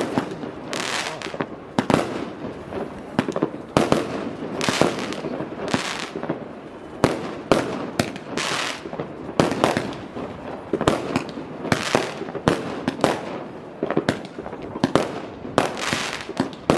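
Fireworks display going off: a quick run of sharp bangs, several a second, with crackling between them.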